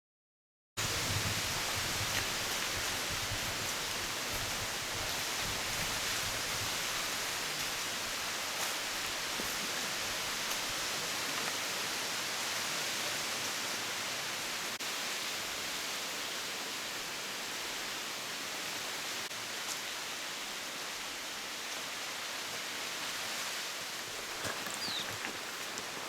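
Steady, even hiss of outdoor ambience that cuts in abruptly after about a second of silence, with a faint short rising chirp near the end.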